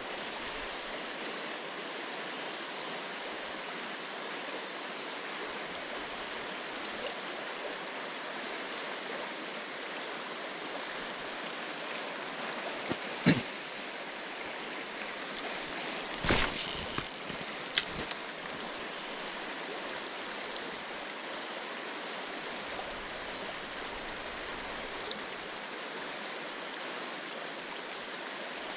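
River water rushing steadily over a shallow stretch, an even unbroken hiss. There are three short sharp knocks a little past halfway.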